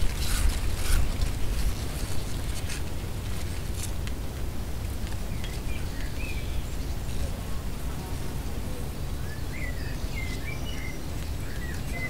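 Gusty wind buffeting the microphone with a heavy low rumble, while the slats of a louvred vent cover clatter in quick clicks during the first few seconds. A bird chirps a few times in the second half.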